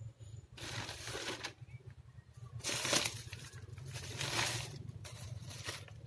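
Plastic bags and wrappers rustling and crinkling as items are pulled out and handled, in four bursts of about a second each, over a low steady hum.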